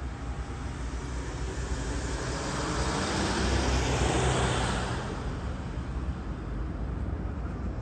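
A car driving past close by, its tyre and engine noise swelling to a peak about halfway through and fading away again, over a steady low rumble of traffic.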